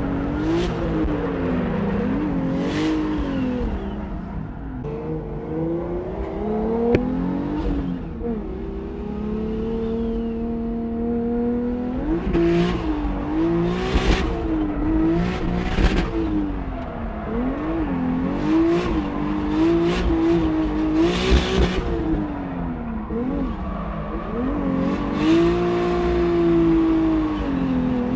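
Turbocharged 1JZ-GTE engine in a BMW E36 drift car, revving up and down over and over as the car is flicked through a drift, with its pitch held steady for a few seconds near the middle. Short bursts of tire noise cut through every second or two, most of them in the second half.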